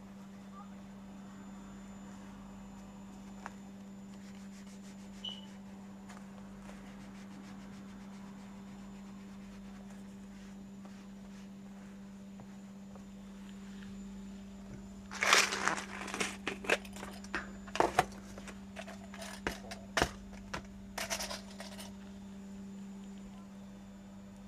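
Crinkling and rustling of a sheet being handled, in a dense run of sharp crackles lasting about six seconds from about fifteen seconds in, over a steady low hum.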